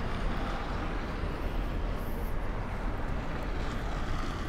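Steady tyre and road noise of a Hyundai Ioniq 5 electric car on the move, with a low rumble and no engine sound.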